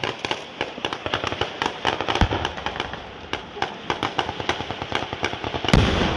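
Rapid, irregular small-arms gunfire, many shots overlapping in quick succession, with a louder, deeper bang near the end.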